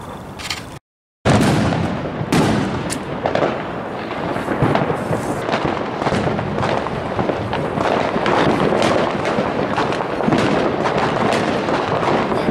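Fireworks going off in a dense barrage of overlapping bangs and crackles. The sound drops out for a moment about a second in, then comes back with a loud bang and carries on nonstop.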